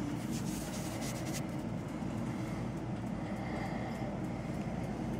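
A steady low rumble, with faint high crackling for the first second and a half.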